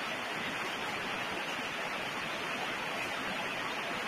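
Steady, even hiss of background noise on the recording, with nothing else heard.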